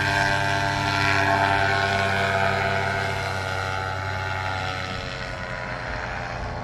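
Paramotor engine and propeller running overhead, a steady buzz that drops slightly in pitch and fades over the second half as the powered paraglider flies off.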